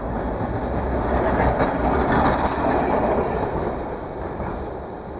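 ATM Class 1500 'Peter Witt' tram passing close by, its steel wheels running on the rails. The sound swells to a peak a second or two in, then fades as it moves away.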